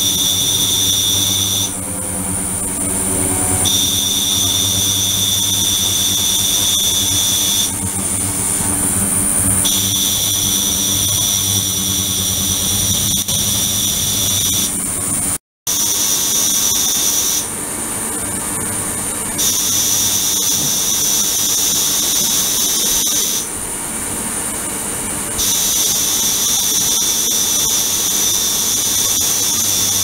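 Ultrasonic transducers driving a water tank: a steady high-pitched whine of several tones over a low hum. The upper tones cut out for about two seconds and come back, over and over, as the oscillation cycles. The sound drops out completely for a moment about halfway through.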